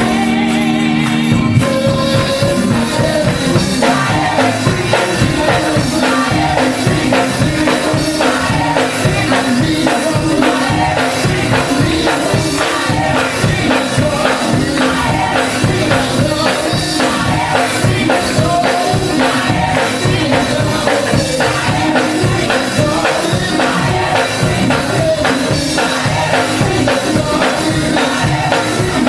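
Live gospel music from a mass choir with band accompaniment, driven by a fast, steady percussion beat.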